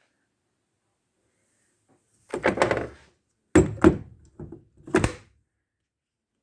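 A run of four short thuds and knocks a little over two seconds in, the last a sharp knock that rings briefly.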